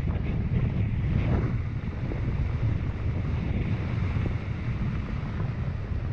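Wind buffeting the microphone of a helmet camera during a fast ride down a rocky dirt track, a steady gusting rumble. A few brief crunches and rattles from the tyres going over stones sit over it.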